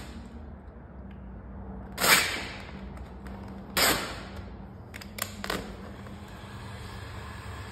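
Vinyl wrap film crackling and snapping in several sudden bursts as the sheet is pulled away from a car door and re-laid, loudest about 2 s in and again near 4 s, with a few small clicks after. From about two thirds of the way in, a heat gun's blower runs with a steady hiss.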